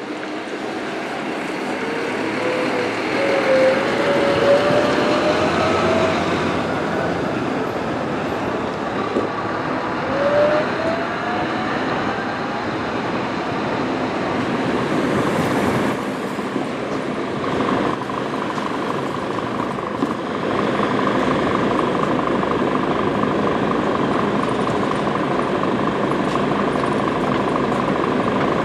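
Scania diesel coach (Marcopolo Paradiso 1200 G7) pulling away and moving off slowly, its engine rising in pitch twice as it accelerates. A steady high hum joins about twenty seconds in.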